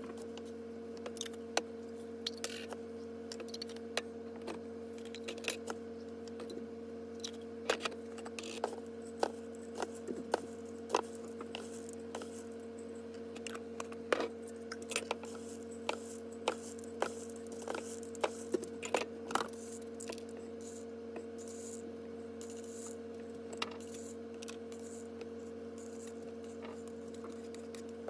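Soaked popcorn kernels clicking and rattling as they are scooped from a plastic colander with a wooden spoon and dropped into glass mason jars, in scattered sharp clicks that thin out near the end. A steady low hum runs underneath.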